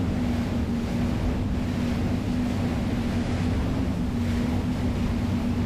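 Twin Mercury Verado V10 350 hp outboard engines running with a steady, unchanging drone as the RIB planes into a strong wind. Wind buffeting the microphone and water rushing past the hull make a constant hiss over it.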